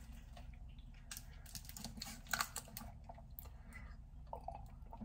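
Faint, scattered clicks and ticks of a plastic screw cap being twisted off a small bottle of milk, with a sharper click about two and a half seconds in.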